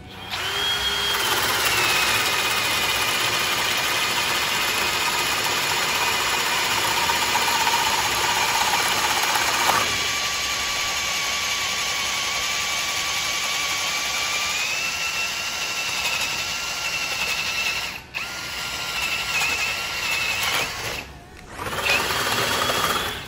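Cordless hammer drill boring a 48 mm spade bit through a wooden beam: a steady motor whine whose pitch sags a little as the bit bites in and rises again later. It drops out briefly about 18 seconds in and for about a second near 21 seconds, then picks up again.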